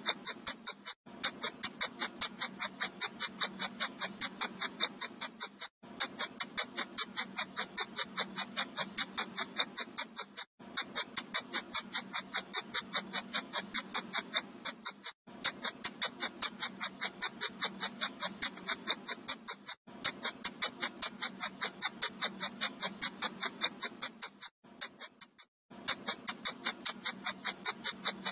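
Electronic mosquito-repellent sound: a rapid train of high-pitched clicking pulses, about eight a second, in runs of about four and a half seconds broken by brief gaps, repeating as a loop.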